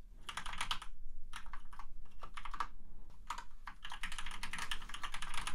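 Typing on a computer keyboard: quick runs of key clicks broken by two brief pauses.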